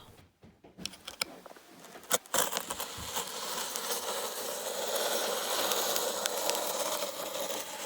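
A few light clicks of handling, then from about two and a half seconds in a steady scratchy hiss as a steel blade is drawn along the plastic packing tape sealing a cardboard box, slicing it open.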